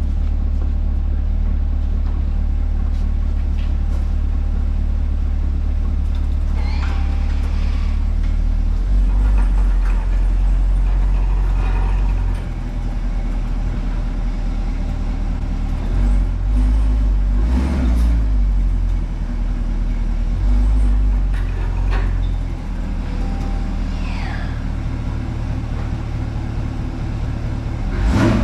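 Engine of a 2020 Chevrolet C8 Corvette Z51, a 6.2-litre V8, running with a deep, steady rumble that swells and drops several times. A few brief squeals and light knocks come through over it.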